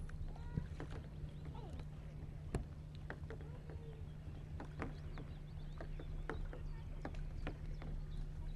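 Canoe paddling on calm water: irregular knocks and clicks of paddle strokes, one sharper knock about two and a half seconds in, with short calls from birds and a steady low hum.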